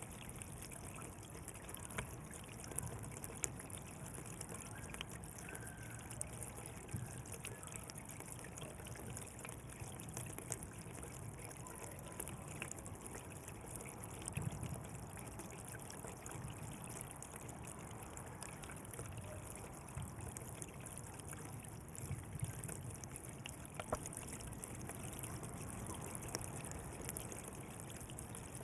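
Water running along a canal, a steady trickling and splashing with small drips and gurgles.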